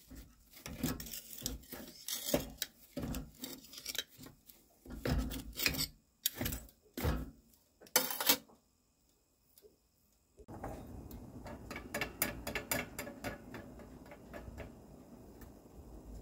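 A pressed sawdust briquette is pushed into a small cast-iron wood stove's firebox onto hot coals, making irregular knocks and scrapes against the stove, with the loudest knock about eight seconds in. After a short pause, a steady faint hiss with many small clicks sets in.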